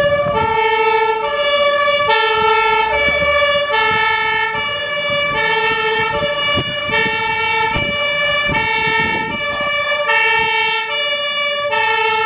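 Two-tone siren of a DAF 75 CF fire engine sounding on an emergency run, alternating steadily between a high and a low note, each held a little under a second.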